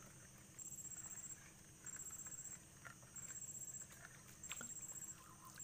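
Insects calling from the riverbank forest: a faint, very high pulsing trill about three-quarters of a second long that repeats every second and a bit, four times, over a steady high insect drone. A few faint light clicks and a little water lapping can be heard underneath.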